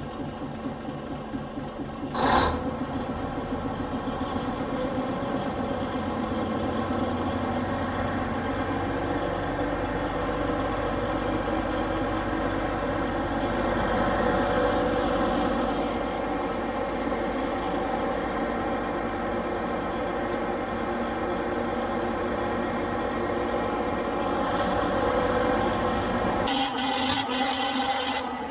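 Industrial Brownhoist railroad wrecking crane's engine and machinery running steadily, heard inside its machinery house, with a short loud burst about two seconds in. It grows a little louder around the middle and again near the end, and close to the end the sound changes to the crane heard from outside.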